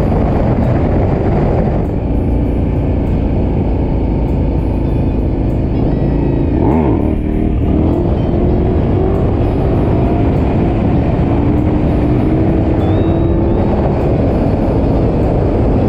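KTM 1190 Adventure R's V-twin engine running under way, largely covered by a steady rush of wind on the microphone. About seven seconds in, the engine note dips and comes back up, then rises slowly.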